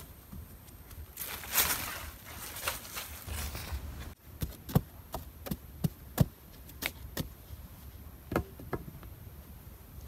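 Wooden stick being jabbed into sandy soil at the base of a tree, giving a run of about ten sharp, irregularly spaced knocks, after a stretch of scraping and rustling.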